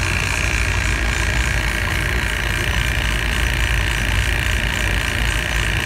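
Refrigeration vacuum pump running steadily, evacuating a repaired refrigeration system, which is pulling down through about 1,600 microns.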